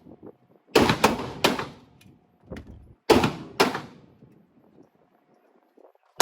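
Glock 23 .40 S&W pistol firing: three shots in quick succession, a fainter pop, then two more shots about half a second apart.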